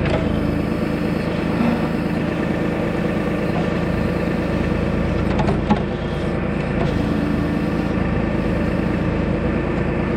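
Tractor-backhoe engine running steadily, with a short knock about halfway through.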